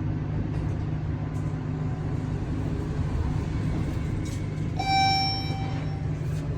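Steady low hum inside a newly installed elevator cab. Near the end, a single electronic chime sounds and fades away over about a second.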